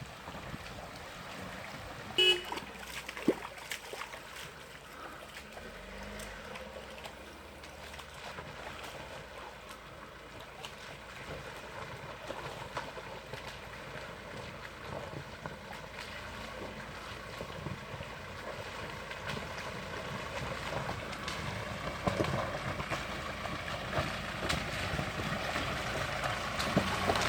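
SsangYong Rexton SUV running as it drives off-road along a creek bed, its engine and tyre noise steady and growing louder near the end. About two seconds in there is a brief high-pitched tone, followed a second later by a sharp knock.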